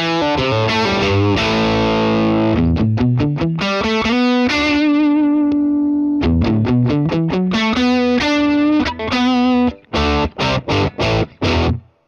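Distorted electric guitar played through the Love Bomb pedal preamp, demonstrating its high-pass (low-cut) switch: rhythmic chords, one chord held and left to ring in the middle, then a run of short choked stabs that stop sharply near the end.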